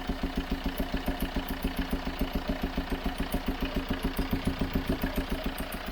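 Chevrolet Tracker engine idling with an even, rhythmic puffing, about eight pulses a second, which the mechanic calls 'assoprando' (blowing).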